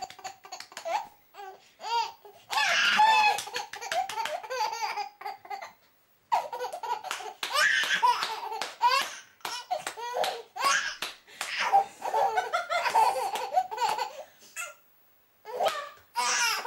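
A baby laughing in long fits of belly laughter, with short breaks about six seconds in and near the end, while clapping his hands.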